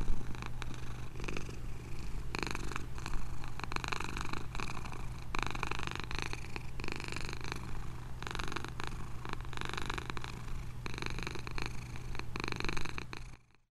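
Domestic cat purring, a steady rumble that swells and eases in a slow rhythm with its breathing; the sound cuts off suddenly near the end.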